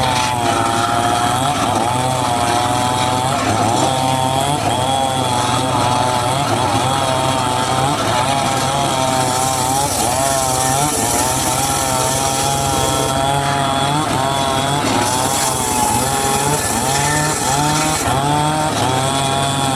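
Homemade circular saw running and cutting teak wood, its whine wavering up and down in pitch as the blade takes load.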